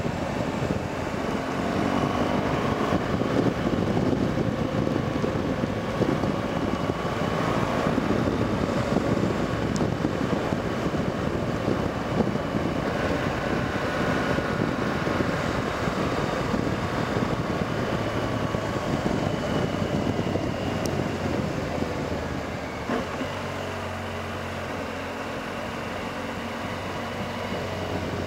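BMW R1200GS Adventure's boxer-twin engine running on the move, mixed with wind and road noise. About three-quarters of the way through it gets a little quieter and settles into a steady low engine note.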